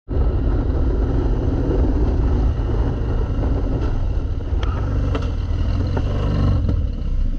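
Harley-Davidson Dyna's V-twin engine running while riding, heard from the rider's seat as a deep, steady rumble mixed with road and wind noise.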